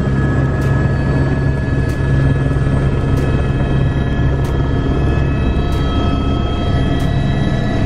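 A helicopter's turbine engine and rotor running, heard inside the cockpit: a steady high whine over a loud low drone.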